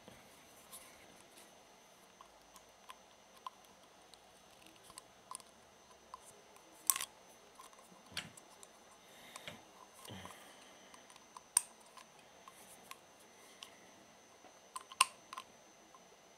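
Sparse small clicks and light metallic taps from hands handling an aluminium electrolytic capacitor can, with three sharper clicks standing out, about 7, 11 and 15 seconds in.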